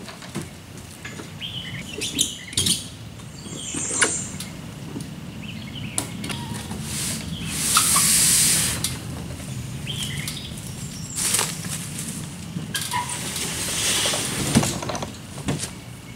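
Canoe hull scraping and sliding along a trailer as it is pushed and worked off by hand, with scattered knocks and clunks against the trailer frame; the longest, loudest scrape comes about eight seconds in and another around thirteen to fourteen seconds. A few bird chirps are heard.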